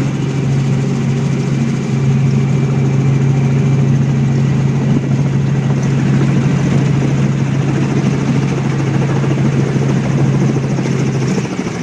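Helicopter in flight, its rotor and engine making a steady low drone over a wide rushing noise.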